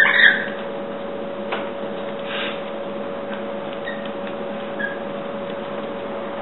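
A short, shrill rainbow lorikeet screech right at the start, then a steady hum with a few faint clicks and taps.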